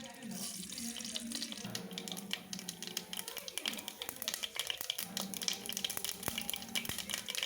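Mustard seeds spluttering in hot sunflower oil in a pan: many quick sharp pops over a steady sizzle, the sign that the oil is hot enough for tempering.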